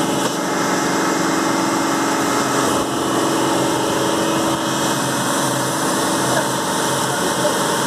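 Water tanker truck's engine and pump running steadily while the truck sprays water through its roof-mounted monitor nozzle.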